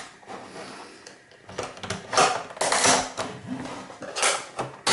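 Plastic top cover of a PlayStation 4 being prised along its seam with a knife blade: creaking and scraping of plastic as the cover's clips are worked, in several bursts starting about a second and a half in.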